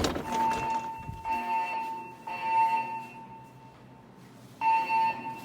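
Siemens MXL-V fire alarm speakers sounding the temporal evacuation tone: a tone just under 1 kHz pulses for about three seconds, pauses for about a second and a half, then starts again near the end. A sharp click right at the start is the loudest moment.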